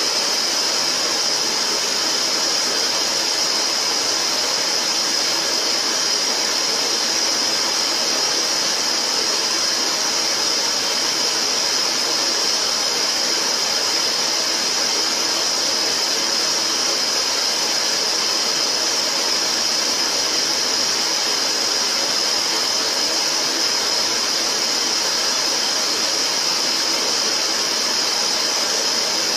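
Steady static noise: a constant, even hiss that is strongest high in the treble.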